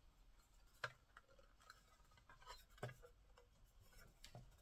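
Faint handling of small plastic model parts: light rubbing and a few soft clicks as fixing pins are pushed into the window frame of a Batmobile Tumbler model, with the two clearest clicks about a second in and near three seconds in.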